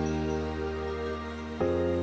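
Soft background music of sustained, held chords, shifting to a new chord near the end.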